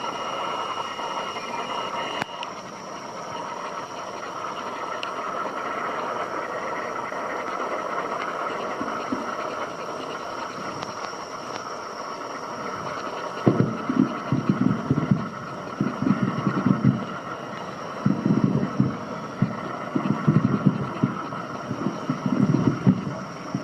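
Fireworks finale: a steady wash of noise for the first half, then from about thirteen seconds in a rapid, irregular string of deep booms from shells bursting overhead.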